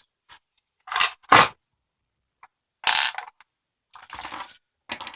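Tools and small hard objects being moved and set down on a workbench: a few separate clacks and metallic clinks, the two sharpest about a second in, then shorter scraping shuffles.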